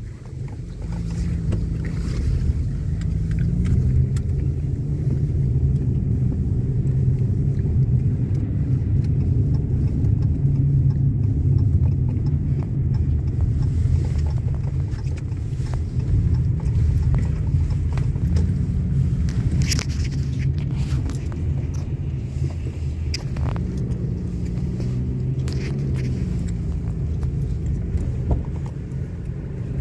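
Inside a car driving slowly: a steady low rumble of engine and road noise, with a faint engine note that rises and falls a little as the car speeds up and slows.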